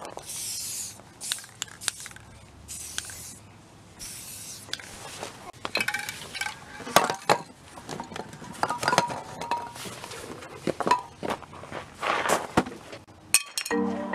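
A Rust-Oleum 2X aerosol spray paint can spraying in three short hisses, followed by metal spray cans clinking and knocking together as they are set down. Music starts just before the end.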